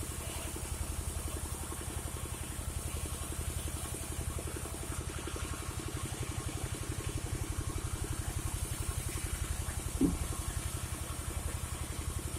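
Engine driving a gergaji slendang sawmill running steadily with a fast, even pulse, not under changing load. A single short knock sounds about ten seconds in.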